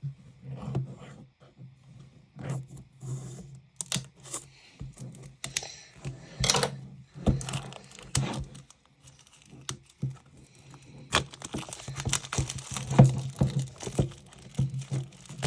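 Handling and unwrapping a GAN12 Maglev speed cube's retail box: plastic wrapping crinkling and tearing, with scattered clicks and taps of the box being handled. The rustling gets busier in the last few seconds.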